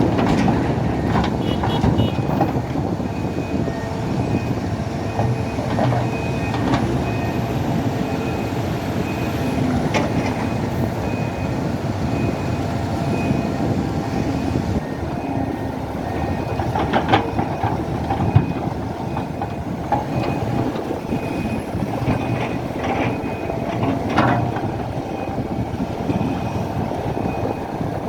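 SANY hydraulic excavator's diesel engine running steadily as it works, loading material. A reversing alarm beeps at an even pace through about the first half, and a few sharp clanks come later.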